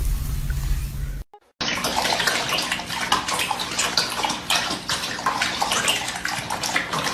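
A low rumble that cuts off about a second in, then after a short gap water splashing and sloshing, as in a bathtub.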